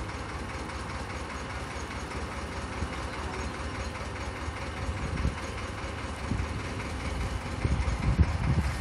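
National 2DM two-cylinder diesel engine running steadily as a narrowboat moves along, with a low, even beat. A few louder low thumps come near the end.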